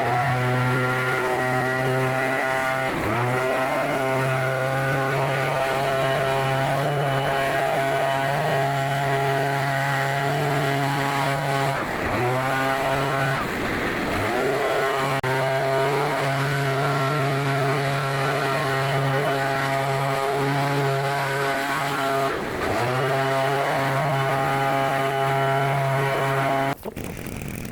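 Small petrol-engine yard tool, such as a string trimmer or brush cutter, running at high speed. Its pitch drops and climbs back up three times as the throttle is eased off and opened again, and the sound cuts off suddenly near the end.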